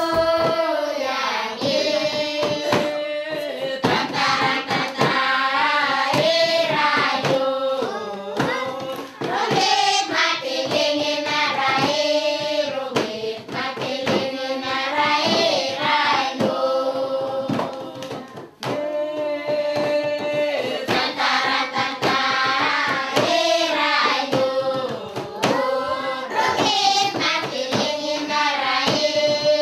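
A group of voices singing a lilting melody together, with rhythmic hand claps keeping the beat; the song breaks off briefly about two-thirds of the way through, then carries on.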